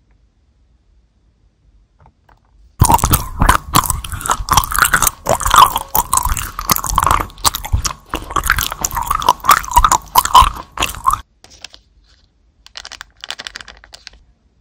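Crisp, loud crunching and chewing of two clear round hard candies, a dense run of sharp cracks lasting about eight seconds that stops suddenly. A couple of seconds later there is a fainter, shorter crackling.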